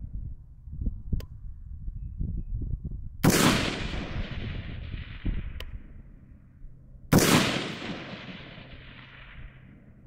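Two shots from a Palmetto State Armory AR-15 rifle, about four seconds apart. Each sharp crack is followed by an echo that fades away over two to three seconds.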